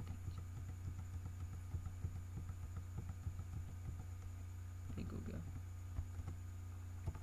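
Computer keyboard keys tapped in a quick, irregular run of light clicks, over a steady low electrical hum.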